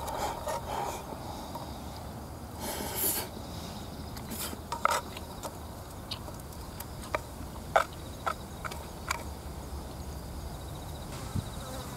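Wooden chopsticks clicking and scraping against an open metal can of rice, with chewing between the sharp clicks. A faint insect trill runs in the background.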